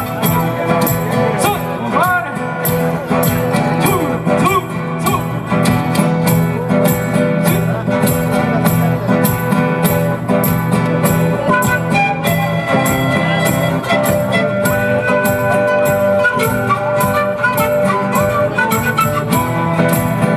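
Live Ecuadorian folk band music: a flute melody over strummed guitars and a steady drum beat.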